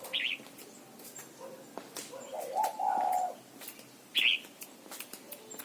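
Red-whiskered bulbul giving two short, high chirps, one near the start and one about four seconds in. About halfway through comes a lower bird call lasting about a second, the loudest sound here. Scattered sharp clicks sound throughout.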